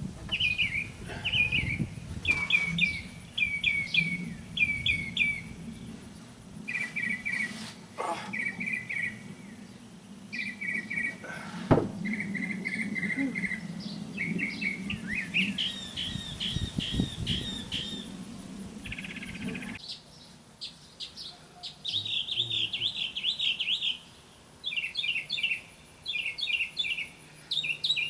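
Songbirds chirping in quick repeated phrases. A low steady hum runs underneath until about twenty seconds in, and there is a single sharp knock about twelve seconds in.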